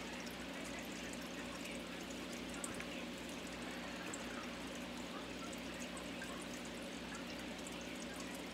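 Steady room noise: an even hiss with a faint low hum that does not change, with no distinct events.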